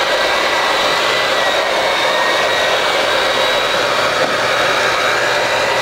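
Hamilton Beach electric hand mixer running steadily with a constant motor whine, its beaters whipping cream cheese butter frosting in a stainless steel bowl as confectioner's sugar is beaten in.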